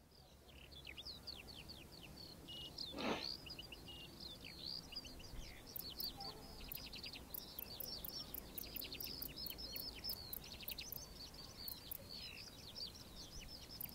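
Many small birds chirping and twittering, with one louder call about three seconds in. From about six seconds in, a grasshopper stridulates, rubbing its hind femur against its forewings, heard as a rapid run of very high-pitched ticks.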